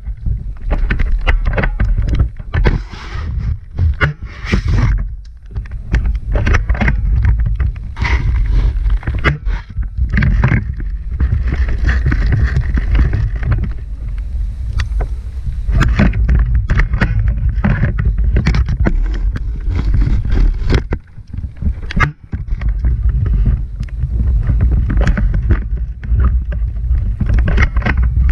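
Heavy rumbling buffeting and handling noise on a moving camera's microphone, with constant rustling and many short knocks and clicks, briefly easing off about three-quarters of the way through.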